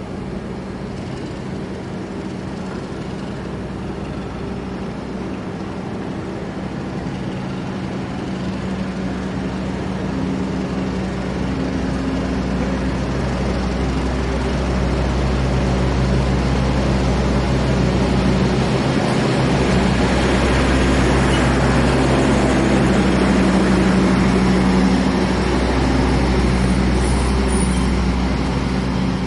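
Diesel train engine running with a steady low hum, growing gradually louder over about twenty seconds as a rumbling noise builds, then easing slightly near the end.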